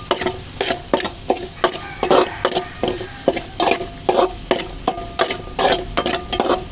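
Spatula stirring chopped onions frying in oil in a kadai: quick scraping strokes against the pan, about three to four a second, over a steady sizzle, as the onions are sautéed toward golden.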